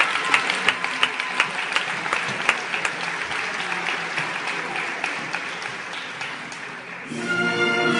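Theatre audience applauding, the clapping thinning and fading. About seven seconds in, the orchestra starts playing.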